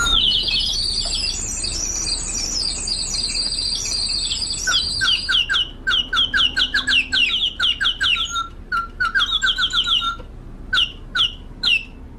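Water-driven mechanical singing bird, a replica of Heron's siphon automaton, whose rushing siphon water forces air through a whistle. It warbles in a continuous high trill for about four and a half seconds, then breaks into quick downward-sliding chirps a few times a second, thinning out with gaps near the end.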